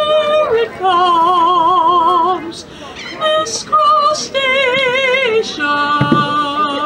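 A woman singing long, held notes with a wide vibrato, in several phrases.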